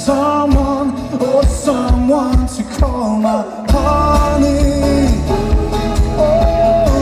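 Live folk-rock band playing, with melodic guitar lines over a steady kick-drum beat about twice a second; a little past halfway a heavy bass comes in and fills out the low end.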